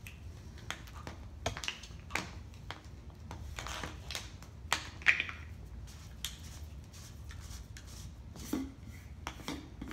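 Plastic housing and parts of a MiniDos 10 dosing pump being handled and worked apart by hand: irregular clicks, knocks and rubs, the loudest about five seconds in.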